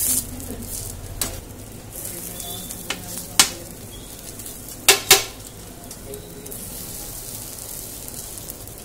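Kaladi kulchas frying on a large flat griddle, sizzling steadily, while metal spatulas scrape and clink on the griddle: a few sharp clanks, two of them close together about five seconds in.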